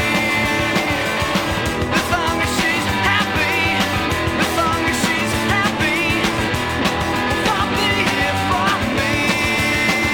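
Rock music with guitar and drums over a steady beat.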